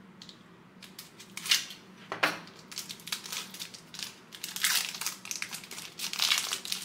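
A trading-card pack's wrapper being torn open and crinkled in the hands, in irregular crackling rustles that grow busier toward the end.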